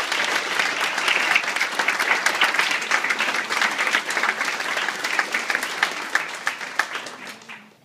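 Audience applauding, a dense spread of hand claps that dies away near the end.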